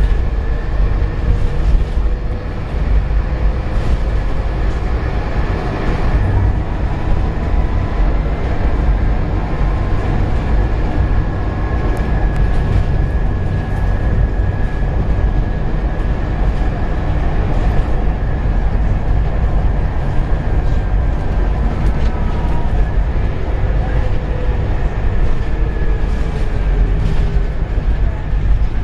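Scania K230UB bus on the move, heard from inside the saloon: a steady deep rumble from the engine and road, with an engine and transmission note that rises and falls a few times and light rattles from the body and fittings.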